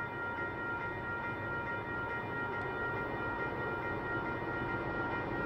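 Heritage diesel locomotives approaching unseen round a curve: a steady engine rumble with a constant high whine, growing slightly louder.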